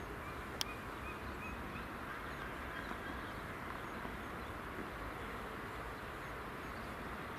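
Steady outdoor background noise with a few faint, short bird calls early on and a single sharp click about half a second in.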